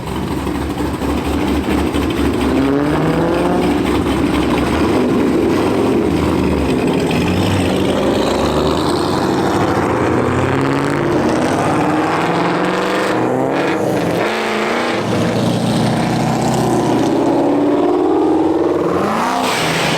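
Car engines revving and accelerating, their exhaust note climbing in pitch again and again, with a strong rising rev near the end.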